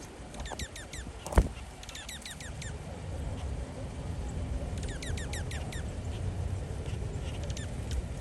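Bird calls: three quick runs of high, sharply falling chirps, each run of six to eight notes, with a few fainter chirps near the end. A single loud sharp click comes about a second and a half in, over a low rumbling background.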